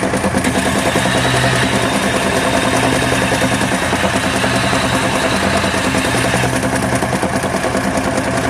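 Opel Omega A engine idling with a steady, rapid knocking, a "дын-дын-дын" beat. The owner takes it for a faulty dual-mass flywheel.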